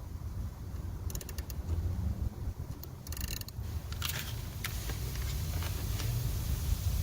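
Low, uneven rumble of a running engine, with several clusters of light mechanical clicks and rattles.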